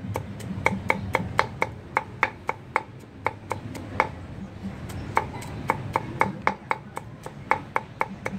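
Knife chopping rapidly on a cutting board, about four or five sharp chops a second, in runs broken by short pauses.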